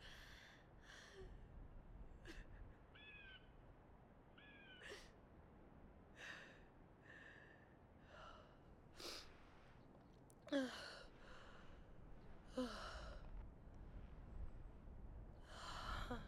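A young woman crying quietly: a series of short, shaky breaths and sighs, with a few stronger sobs whose voice breaks and falls in pitch, the loudest about ten seconds in.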